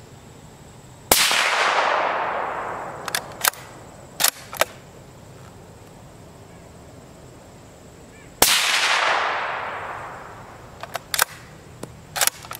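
Two suppressed supersonic 30-caliber rifle shots, about seven seconds apart, from a CZ 557 bolt-action rifle fitted with a Q Full Nelson suppressor. Each is a sharp crack followed by an echo that fades over about two seconds. A few seconds after each shot come four short clicks as the bolt is worked to chamber the next round.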